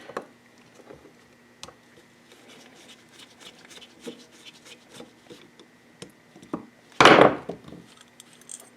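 Small metallic clicks, taps and scrapes of a screwdriver working the pilot jet out of a small quad's carburetor. A louder, short rush of noise comes about seven seconds in.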